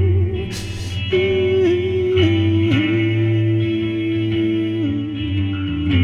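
Instrumental band music in a bluesy rock song: a lead guitar holds long notes, sliding down between them, over a steady bass note. A short cymbal-like hiss sounds about half a second in.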